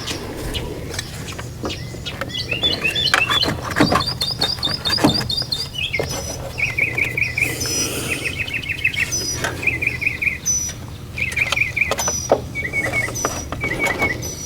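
Songbirds chirping in rapid trilled phrases, with a few sharp clicks and knocks about 3 to 5 seconds in.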